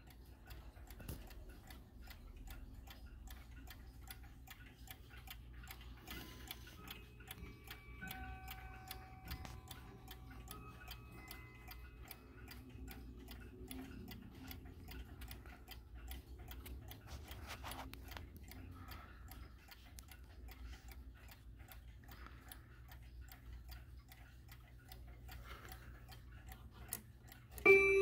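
Mechanical clock movement of a Howard Miller wall clock ticking steadily. Near the end, the clock's metal chime rods are struck and start ringing loudly.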